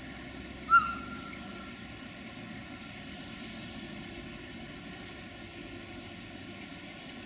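Sulzer diesel engine of a CFR 060-DA (LDE2100) locomotive idling steadily while the train stands in the station. A short, loud, high chirp cuts in about a second in.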